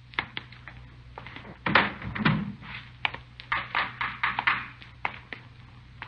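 Radio-drama sound effects: a run of irregular knocks and taps, with one heavier thump about two seconds in, over a steady low hum of the old recording.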